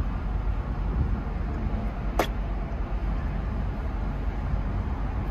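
Steady low rumble of wind on the microphone and road traffic, with a single sharp click about two seconds in.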